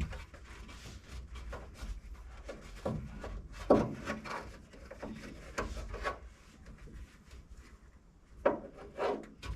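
Hands-on work on the truck's seat and mounting bolts: irregular rubbing and scraping with several louder knocks and clunks.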